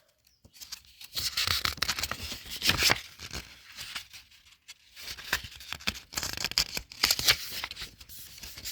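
Paper rustling as the pages of a thin paperback picture book are handled and turned, in two bouts of crinkly noise.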